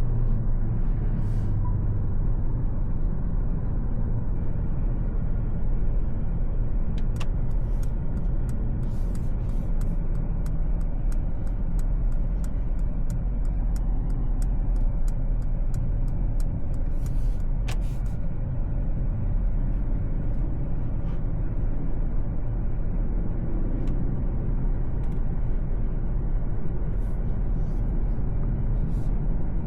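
Mercedes-Benz C 200 with its 1.5-litre four-cylinder turbo petrol engine driving on the road: a steady low rumble of engine and tyre noise. A run of light, evenly spaced ticks comes in for about ten seconds in the middle.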